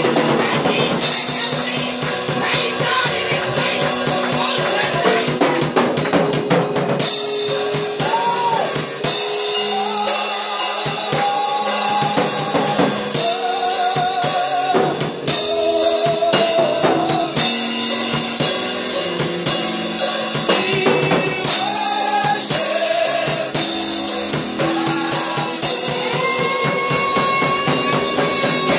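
Live gospel praise music with a drum kit keeping a steady beat of kick, snare and cymbal strikes, under a keyboard and a wavering melody line.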